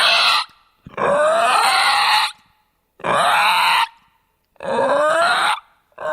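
Zombie sound effects: a person's voice making a series of harsh, gritty growls and snarls, each about a second long with short gaps between. The pitch rises through each growl.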